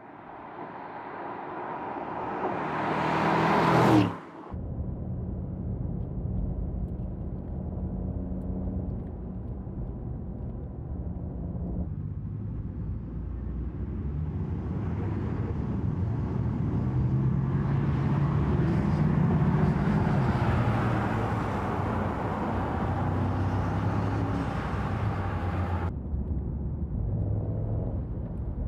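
Mercedes-AMG GT's 4.0-litre twin-turbo V8 engine and exhaust while driving. The sound builds to a peak about four seconds in and cuts off abruptly. It then runs on with its pitch rising and falling as the car speeds up and eases off, and drops away near the end.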